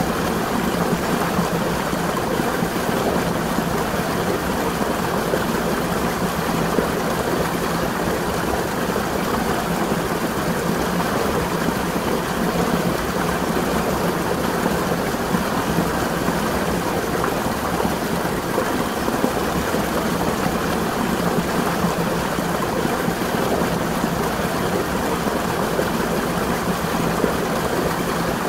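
Water from a spring flowing and splashing, a steady, unbroken rush.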